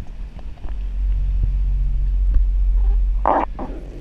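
Sea-Doo GTI 130 jet ski's three-cylinder four-stroke engine running at low speed, a deep rumble that swells about a second in. A short noisy burst, like a splash, comes near the end.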